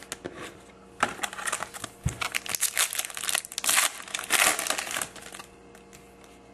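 Foil trading-card pack wrapper crinkling and being torn open by hand, a dense run of crackling from about a second in until about five seconds in.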